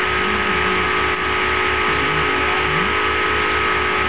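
Home-built Steorn Orbo-style magnet motor with an 8-magnet rotor running steadily: a whir with a steady high hum and a low pulsing about five times a second.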